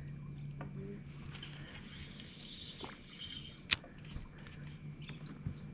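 A baitcasting reel and rod handled close to the microphone: a rustle of clothing and gear, then one sharp click a little past the middle, with a few softer knocks, over a steady low hum.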